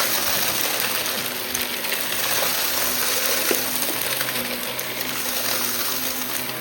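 Shark vacuum cleaner running: a steady rush of air with a low motor hum, and a single short click about three and a half seconds in.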